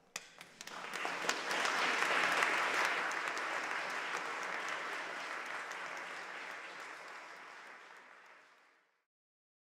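Audience applauding: a few separate claps at first, swelling to full applause within about two seconds, then fading away gradually until it stops about nine seconds in.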